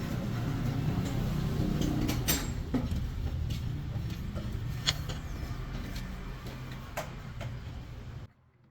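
A machine running with a steady low rumble, with a few sharp metallic clinks over it, cutting off abruptly near the end.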